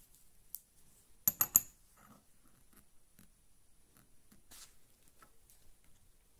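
A steel angle-grinder flange nut set down on a steel open-end wrench: three quick metallic clinks about a second and a half in, after a lighter click, then faint handling rubs.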